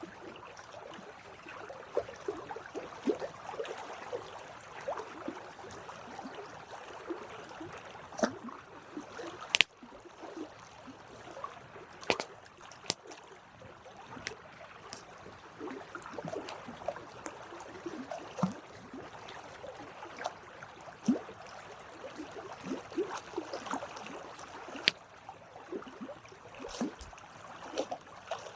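Campfire crackling, with a steady hiss of burning wood and many small irregular snaps, a few of them sharper pops.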